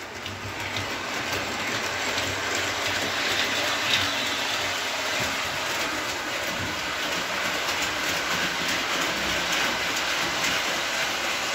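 MTH RailKing 2-8-0 model steam locomotive and its passenger cars running on three-rail tubular track: a steady rolling, whirring noise of the DC motor, gears and wheels on the rails. There are no chuff or whistle sound effects, because the speaker and sound electronics have been removed.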